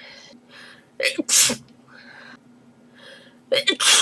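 A girl sneezing twice in a sneezing fit. Each sneeze is a short voiced intake followed by a sharp hissing burst, the first about a second in and the second near the end. Quick breaths come between the sneezes.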